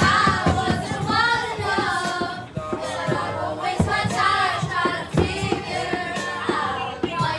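Music with a singing voice, played loud, with sharp cracks scattered through it.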